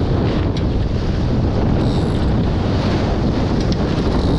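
Steady wind buffeting the microphone over the rush of water and spray along the hulls of a Nacra 20 beach catamaran sailing fast in 20-plus knots of wind.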